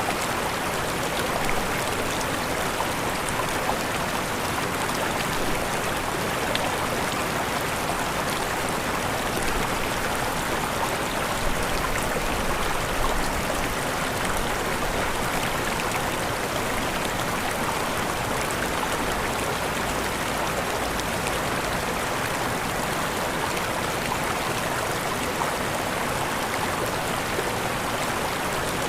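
River water rushing over small waterfalls, a steady even flow with no breaks.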